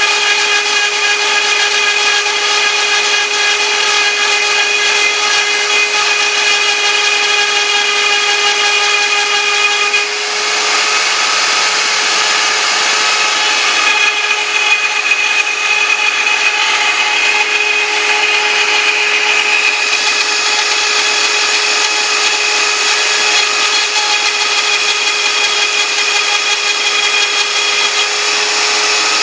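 CNC router spindle running with a steady whine while its cutter mills Thai lettering; the tone shifts about ten seconds in and changes again for a few seconds in the middle.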